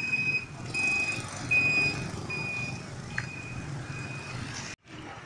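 An electronic beeper sounding a series of short, high beeps, about one every 0.7 s, over the low rumble of street traffic and motorbikes.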